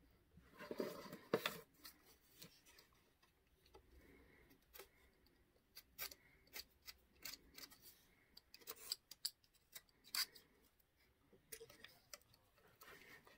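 Craft knife blade scraping and clicking against a small wooden bed post as dried excess glue is trimmed off, in short, faint, irregular strokes. A louder scuffing of the piece being handled about a second in.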